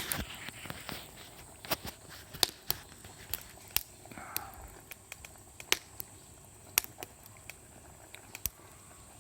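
Wood campfire crackling, with irregular sharp pops and snaps over a faint hiss.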